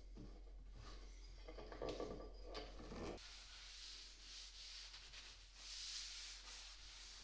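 A cloth rag rubbed across a freshly glued-up white oak panel in slow wiping strokes, as glue squeeze-out is wiped off. Before it, in the first few seconds, light knocks and handling noise come from the bar clamps being set.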